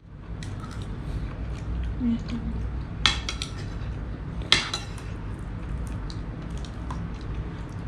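Spoons and forks clinking against plates during a meal, with two sharper clinks about three and four and a half seconds in, over a steady low hum.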